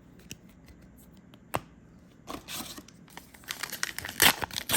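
Foil booster pack wrapper being torn open and crinkled by hand, after a few light clicks and taps; the tearing and crinkling grow busier and louder over the last two seconds.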